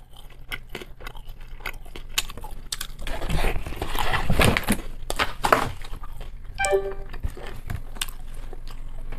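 Close-miked chewing of a pan-fried dumpling, with wet mouth clicks and smacks. It grows louder and denser a few seconds in.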